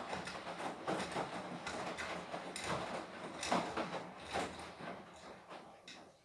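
Beko WTK104121W front-loading washing machine tumbling a wash load: irregular swishing and sloshing of wet laundry and water in the turning drum, fading out near the end as the drum slows to a stop.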